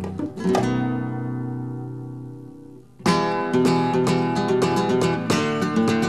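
Background music of strummed acoustic guitar. A chord rings out and fades for about two seconds, then the strumming starts again about three seconds in.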